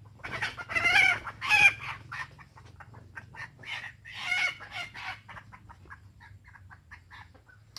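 A chicken calling: two loud calls in the first two seconds and a third about four seconds in, with a run of short, quick clucks in between and after them.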